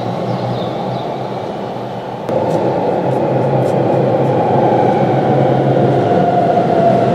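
Keihan 13000 series electric train running into a station platform, with the rumble of wheels on rail and a faint whine from its motors. The sound gets suddenly louder about two seconds in.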